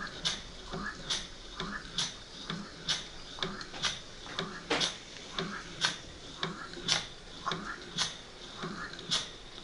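Small vertical-boiler toy steam engine running under steam: a steady rhythmic chuff and hiss of exhaust steam, with a sharper puff about once a second.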